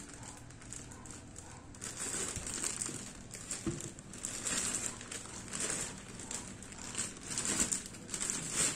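Clear plastic bags crinkling and rustling as a car head unit and its mounting frame are handled and unwrapped, in irregular crackly rustles that get louder near the end.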